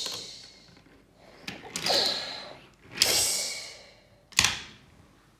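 Two breathy, hissing whooshes made with the mouth, then a single sharp knock of a toy car on a wooden table about four seconds in.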